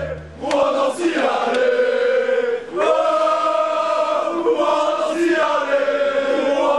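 Crowd of football supporters chanting a song in unison, many men's voices holding long sung notes together.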